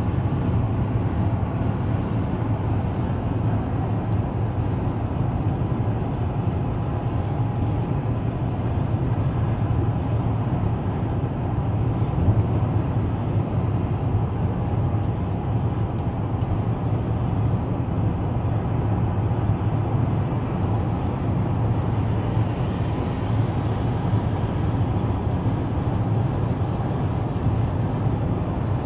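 Steady road and tyre noise with a low engine hum inside a car cruising at highway speed.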